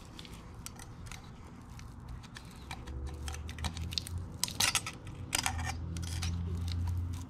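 Steel feeler gauge blades clicking and scraping as they are slid between the camshaft lobes and valve shims of a Yamaha YZ450F's four-stroke head to measure valve clearance. A low hum swells underneath from about three seconds in.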